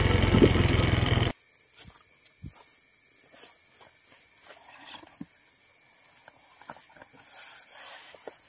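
Motorcycle engine and wind noise while riding, cut off abruptly about a second in. Then crickets chirping faintly in the dark, with soft rustles and clicks as someone settles into a fabric hammock.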